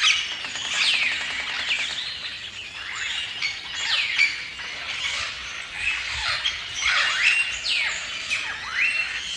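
A flock of birds calling: many overlapping squawks and chirps, each sweeping quickly down or up in pitch.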